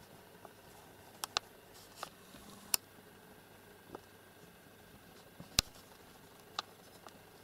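A kitten playing on a blanket-covered bed: scattered sharp clicks and taps, about ten of them at uneven intervals. The loudest comes about five and a half seconds in.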